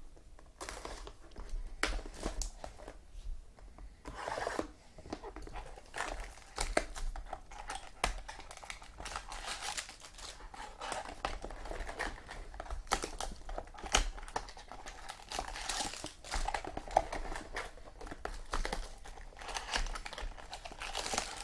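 Plastic wrapping on trading-card boxes and packs crinkling and tearing as it is pulled off by hand, in many short crackles.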